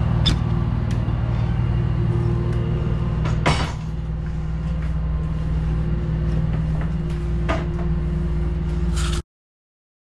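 A boat's engine running with a steady low hum, with scattered clicks and knocks from climbing a metal ladder and up through a floor hatch, the loudest knock about three and a half seconds in. The sound cuts off abruptly about nine seconds in.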